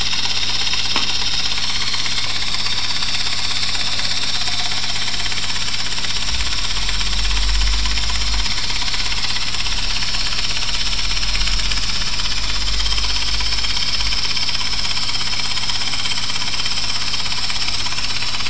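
3Shape TRIOS intraoral scanner running steadily while scanning: a constant high-pitched whir with a low hum beneath it.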